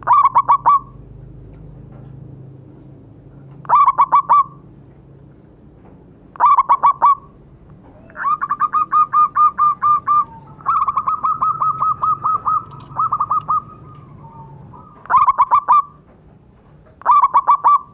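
Zebra dove (perkutut) cooing loudly in short phrases of four or five quick staccato notes, repeated every few seconds, with two longer rapid runs of notes in the middle.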